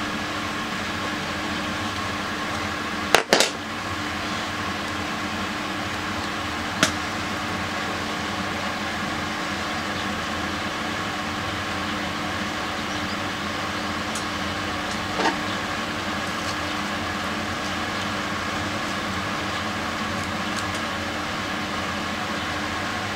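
Steady mechanical hum, like a fan or small appliance, with a few short sharp clicks; the loudest is a double click about three seconds in.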